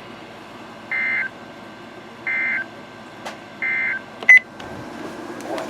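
NOAA Weather Radio SAME end-of-message data signal: three short, identical two-tone digital bursts about 1.4 s apart, marking the end of the severe thunderstorm warning. A brief, louder beep follows the third burst, over a steady radio hiss.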